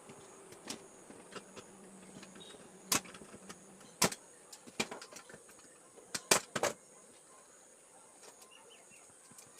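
Sharp, scattered clicks and knocks of a screwdriver and small hard parts being handled while the inverter's case and board are unscrewed, the loudest a quick cluster about six seconds in.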